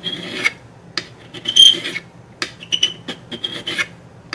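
Hand filing: a worn flat metal file drawn in several short strokes across the cut-off end of a metal tube in a briar pipe shank, taking it down flush with the shank face. The loudest stroke comes about a second and a half in.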